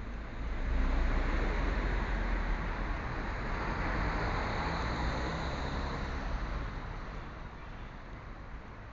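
A car driving past: tyre and engine noise swells up about half a second in, stays loud for several seconds with a deep rumble, then slowly fades away.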